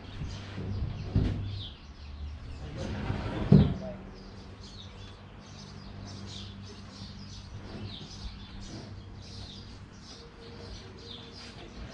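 Small birds chirping over and over, over a low steady hum. A loud thump about three and a half seconds in.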